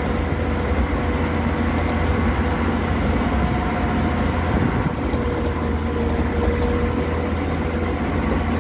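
Caterpillar 12H motor grader's diesel engine running steadily while the machine works, heard from inside the cab as a continuous low drone.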